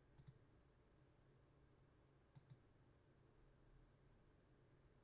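Near silence with faint clicks of a computer mouse: two quick double clicks, one at the very start and one about two and a half seconds in.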